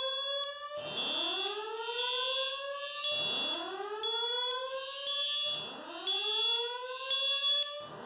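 Building fire alarm voice-evacuation system sounding its slow whoop tone between spoken messages. Each rising sweep lasts about two and a half seconds, with nearly four of them, and a high-pitched tone pulses on and off alongside.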